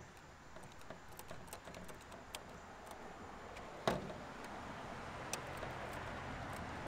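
Scissors snipping through the thin clear polycarbonate shell of an RC car body: scattered small clicks with a sharper snip about four seconds in, and the plastic rustling as it is flexed and handled.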